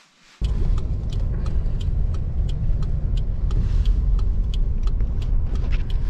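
Steady low rumble of a car driving, heard from inside the cabin, with light ticks scattered throughout. It starts abruptly about half a second in.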